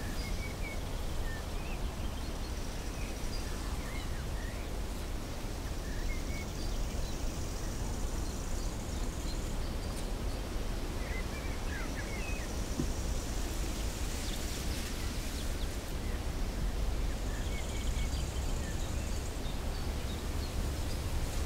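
Outdoor morning ambience: small birds giving short scattered chirps over a steady low rumble and hiss.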